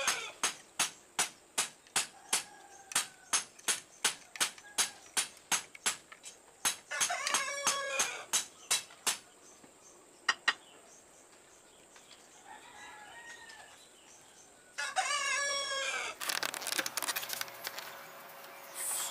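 A rooster crowing twice, about seven seconds in and again about fifteen seconds in. Over the first nine seconds or so, hand work on the knife makes a quick regular run of short strokes, about two to three a second. A rustling hiss follows near the end.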